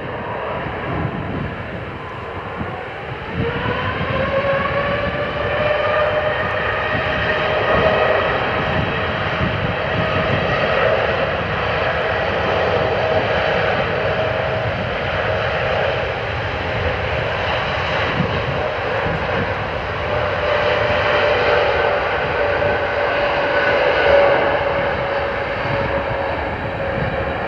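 Boeing 787-9's Rolls-Royce Trent 1000 jet engines spooling up to takeoff thrust: the whine rises in pitch and the sound swells about three seconds in, then holds steady at full power through the takeoff roll to rotation.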